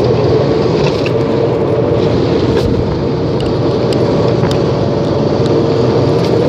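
Steady loud running noise of a moving car, engine and road rumble with a constant hum, heard from inside.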